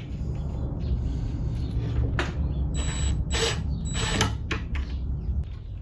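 A cordless impact driver runs steadily, rattling as it drives coarse-thread pocket-hole screws into plywood. A few sharp clicks come in the second half.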